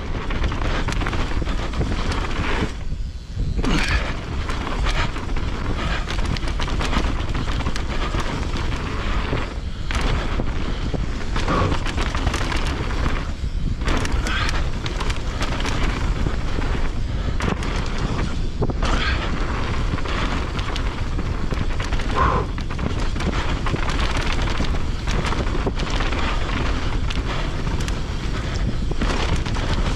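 Wind buffeting the microphone as a mountain bike is ridden along a dirt trail, with the bike rattling and knocking over rough ground. Steady and loud, with brief lulls.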